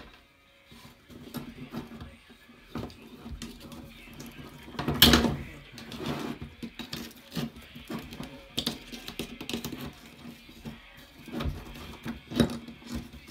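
Small clicks, taps and clatters of pliers and plastic RC suspension parts being worked apart on a wooden bench, with a sharper knock about five seconds in and another near the end.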